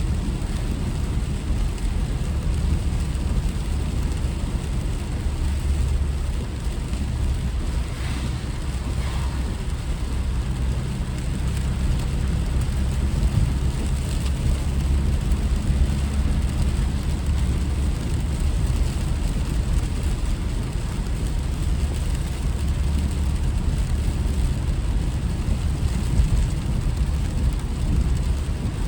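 A car driving, giving a steady low rumble of road and engine noise.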